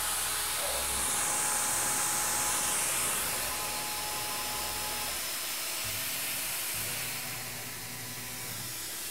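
Tormach PCNC 1100 spindle running at 1850 rpm, with flood coolant spraying, as a small drill feeds slowly into 4140 steel to make a hole for reaming. The sound is a steady hiss with a faint whine that stops about halfway through, and a low hum comes in near the end as the drill is back out of the hole.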